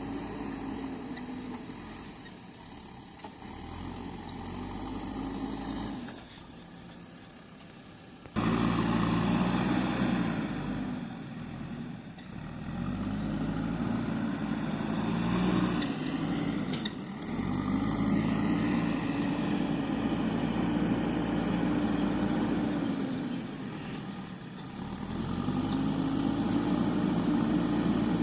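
JCB 3DX backhoe loader's diesel engine working, its pitch rising and falling over and over every few seconds as the machine is loaded and eased off. The sound jumps suddenly louder about eight seconds in.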